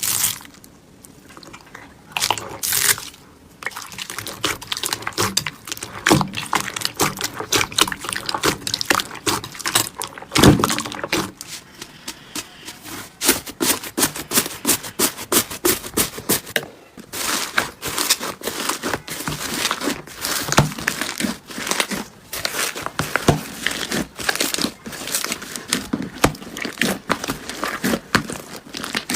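Slime being squeezed and worked by hand, giving a dense, uneven run of small crackling clicks and pops.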